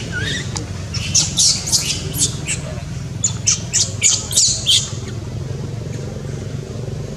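Newborn baby monkey crying: a rapid run of about a dozen shrill, falling squeaks over three to four seconds. A steady low hum runs underneath.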